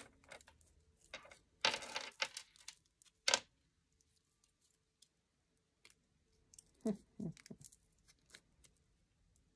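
Metal necklace chain clicking and jingling in the fingers as it is untangled from its tag, with a scratchy rustle about two seconds in and a sharper clatter at about three seconds; after that only a few faint clicks.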